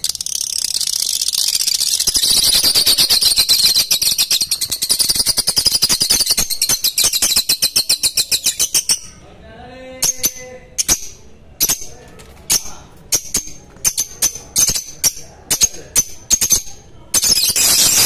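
A small flock of caged lovebirds calling. First comes a dense, shrill, fast chatter lasting about half the time, then separate sharp chirps, and near the end the rapid chatter starts again.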